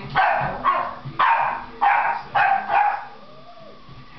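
Boston Terrier puppy play-barking: about six short, sharp barks in quick succession, stopping about three seconds in.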